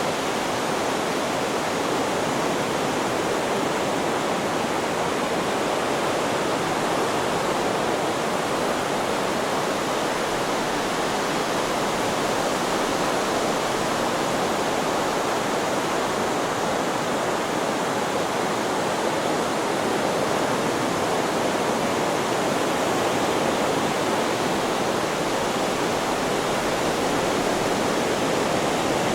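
Steady, even hiss of white noise that holds at one level, with no rise and fall of waves.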